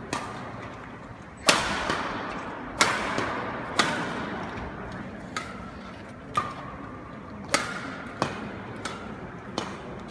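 Badminton rally: racket strings striking a shuttlecock about ten times, roughly a second apart and quickening toward the end, some hits sharp and loud like smashes, each echoing in a large sports hall.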